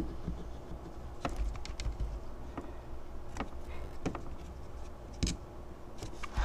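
Scattered light clicks and taps, about a dozen at irregular intervals, from a hot glue gun and wooden popsicle sticks being handled and set down on a tabletop while sticks are glued in place.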